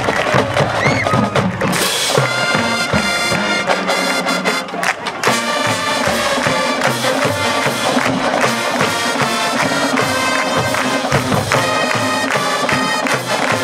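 High school marching band of brass and woodwinds (flutes, saxophones, trumpets, sousaphones) playing loud held chords, with the full band sounding from about two seconds in.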